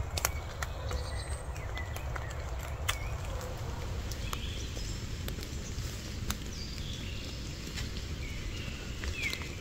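Damp forest ambience: a low steady rumble underneath, scattered sharp ticks, and a few short chirps from small birds, one of them a quick falling call near the end.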